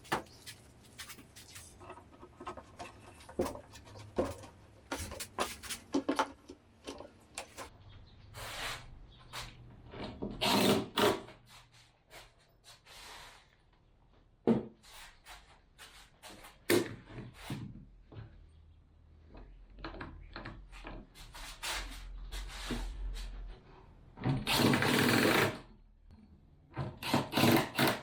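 Workshop sounds of wood and tool work: scattered knocks and clatter, with two short runs of a power tool, about ten seconds in and again near 25 seconds.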